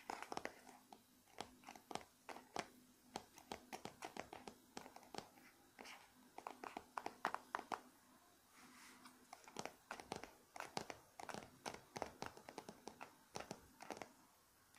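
Fingertips and nails tapping and scratching on the glossy cardboard cover of an origami kit book: light, irregular taps, several a second, with a brief thinner spell about two thirds of the way through.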